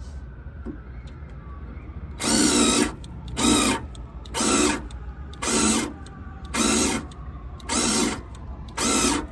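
Cordless drill run in seven short trigger bursts, about one a second, as a bit is pushed into sheet metal for rivet-nut holes.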